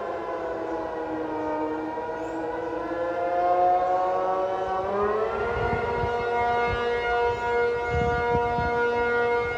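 Air-raid siren wailing. Its pitch sinks, then climbs back up between about three and five seconds in, and from there holds a steady tone.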